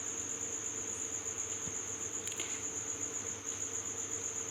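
A cricket trilling steadily in the background, a continuous high, finely pulsing chirp, over a faint steady low hum.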